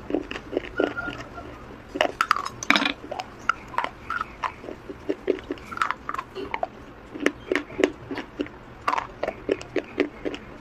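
Close-up crunching and chewing of hard, dry clay-like bars: a run of sharp, crisp crunches, several a second, with short pauses between bites.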